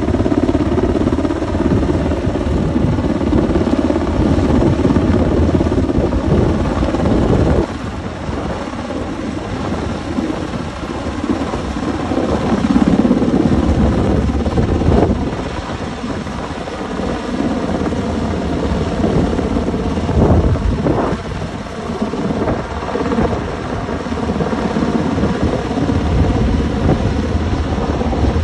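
UH-60 Black Hawk helicopter overhead: steady rotor and twin-turbine noise, dipping slightly about eight seconds in.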